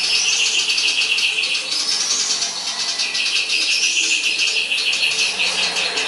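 Caged sirtu (sirpu) songbird singing a fast, unbroken stream of high chattering notes with rising sweeps that recur every couple of seconds. This is the 'konslet' style of song, filled with mimicked calls of fighting tree sparrows.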